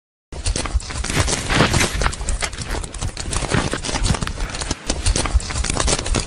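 Book pages being riffled and flipped rapidly by hand, a dense run of quick paper flaps and clicks with a brief pause a little before the end.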